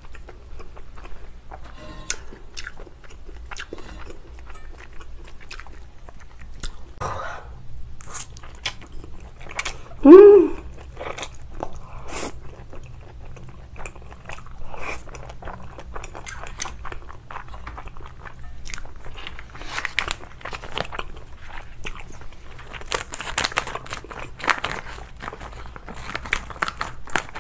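Close, wet chewing and slurping of spicy cold noodles (black noodles with glass noodles and cucumber), a steady run of small mouth clicks, with one short, loud vocal sound about ten seconds in. Near the end, kitchen scissors snip the noodles in the metal bowl.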